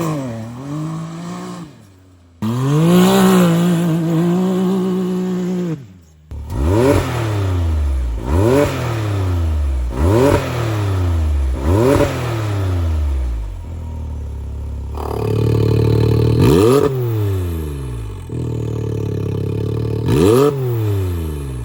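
Can-Am UTV's turbocharged 1000 cc three-cylinder engine revving through an aftermarket valved exhaust and downpipe. A held rev that cuts out abruptly twice gives way to a run of quick throttle blips, each a sharp rise and fall in pitch, about two seconds apart.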